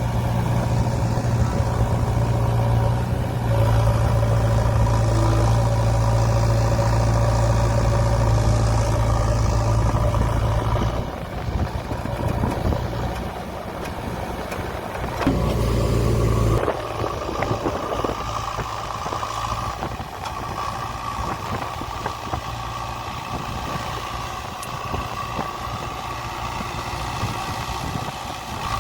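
JCB 3DX backhoe loader's diesel engine running. It is loud and steady for about the first ten seconds, then drops to a quieter, rougher sound, with a brief loud surge around the middle.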